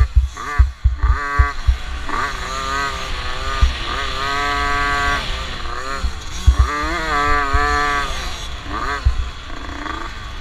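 50cc two-stroke youth motocross bike engine revving hard and backing off over and over, its pitch climbing and dropping every second or two, with wind rush and low thumps from the ride on the onboard microphone.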